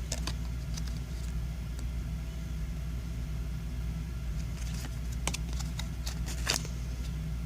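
A steady low hum, with a few light clicks and rustles of trading cards being handled, mostly in the second half.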